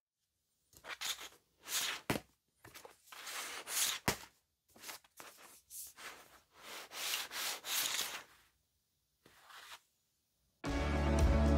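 About a dozen dry rubbing strokes of uneven length, with a sharp click or two among them; music comes in near the end.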